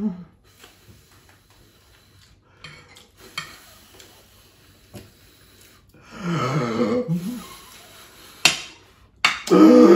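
Light clinks of cutlery against plates while eating, scattered over a quiet table, with one sharp click near the end. A person's voice comes in briefly about six seconds in and again, louder, just before the end.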